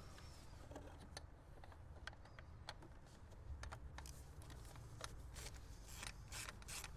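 Faint, irregular metal clicks and light scraping as a hand tool undoes a screw on the PCV valve housing. The clicks come quicker and sharper over the last few seconds.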